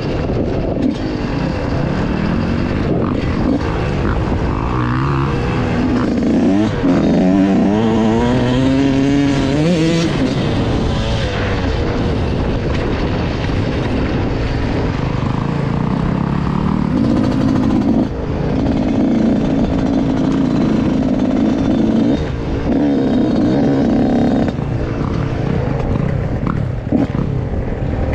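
Dirt bike engine ridden off-road, heard close up from the rider's helmet. The engine pitch climbs and drops several times as the throttle is worked, about a third of the way in, then holds steadier, over constant rumble and wind noise.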